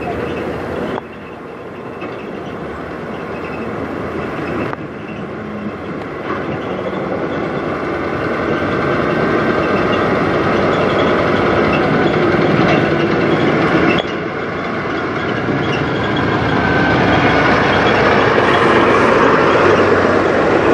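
Peterbilt semi truck's diesel engine running as the rig pulls slowly past, growing louder as it nears and passes close by.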